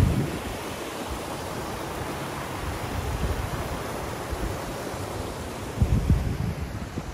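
Steady rushing noise with wind buffeting the microphone in low gusts at the very start and again about six seconds in.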